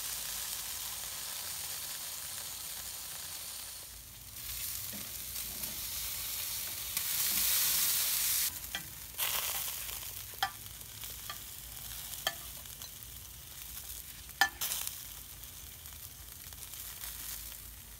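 Chicken sizzling on a hot charcoal grill grate, a steady hiss that swells for a second or so about seven seconds in as the bird is turned with metal tongs. A few short clicks follow later, the tongs against the chicken and grate.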